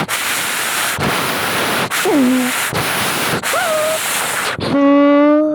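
Strong wind noise on the microphone, a steady rushing with brief dropouts. Two short pitched calls sound through it, one falling and one rising, then a long held call near the end, the loudest part.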